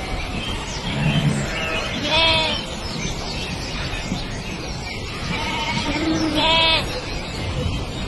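A flock of sheep bleating, with several overlapping calls. Two long, wavering bleats stand out, about two seconds in and again past six seconds.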